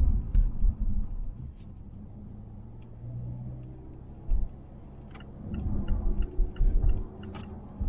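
Road rumble inside the cabin of a 2020 Mazda Atenza, with heavy low bumping in the first second and again from about five and a half seconds in. During the second bout come short light ticks, about four a second, which fit the interior rattle the car is faulted for.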